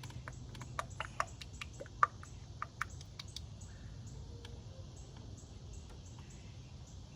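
Light clicks and taps of plastic oil jugs and caps being handled, about a dozen in the first three and a half seconds with one sharper click about two seconds in, over a steady low hum.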